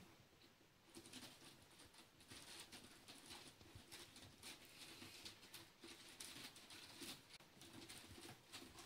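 Faint, irregular scratching and pattering of kittens' claws gripping a sisal scratching post as they climb, with light paw steps on carpet.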